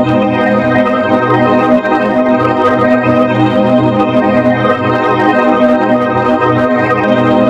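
A sustained organ-like chord of many steady tones held without a break, loud and even, with a slight pulsing in the low notes.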